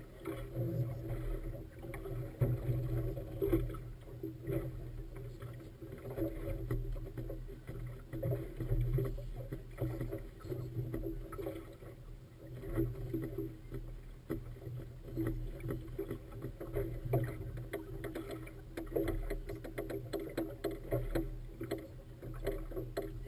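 Motorboat engine running steadily, with water splashing against the hull in choppy water and the level rising and falling.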